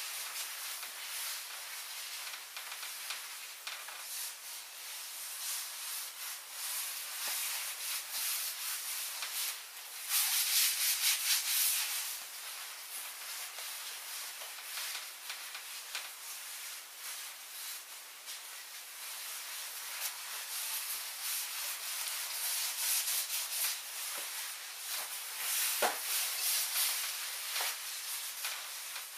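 Taffeta dress rustling as the wearer walks and turns, a dry swishing that swells for a couple of seconds about ten seconds in. A single sharp tap near the end.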